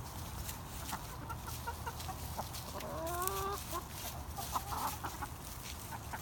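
Backyard laying hens clucking while feeding: scattered short clucks, with one longer drawn-out call lasting most of a second about three seconds in.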